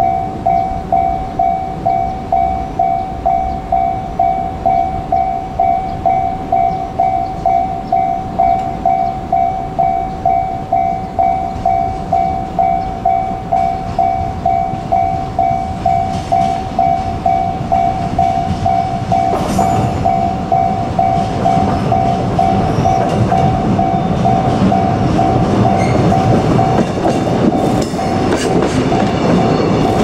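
A level-crossing warning bell dings steadily about twice a second. About two-thirds of the way through, a slow JR Freight train of flat container wagons rolls past, its wheel and rail rumble rising and covering the bell, with a few clanks near the end.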